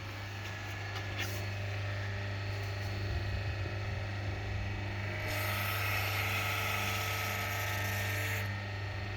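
A power tool runs with a high whirring hiss for about three seconds, starting about five seconds in, over a steady low hum.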